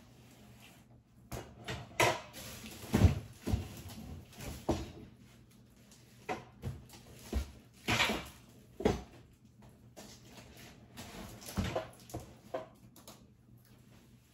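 Things being handled, moved and set down while unpacking: irregular knocks, bumps and clatter, with the loudest thumps about three seconds in and again around eight to nine seconds.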